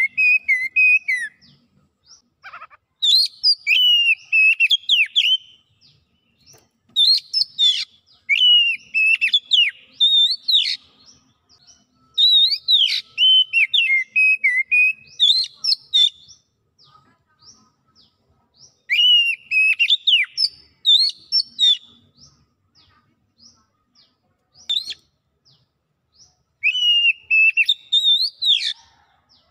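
Oriental magpie-robin singing loud, varied whistled phrases of quick rising and falling notes. The song comes in about six bursts of two to four seconds each, separated by short pauses.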